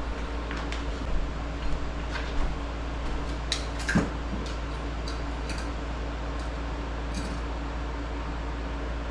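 A steady low hum with a scattering of light clicks and taps, the sharpest about four seconds in.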